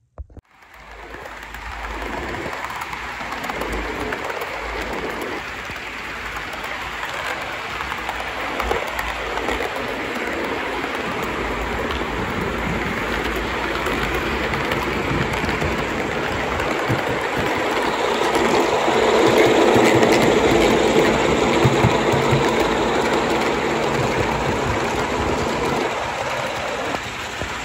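0 gauge model Class 47 diesel locomotive and its coaches running along the layout's track: a steady mechanical running noise that grows louder, peaks about two-thirds of the way through, then eases off.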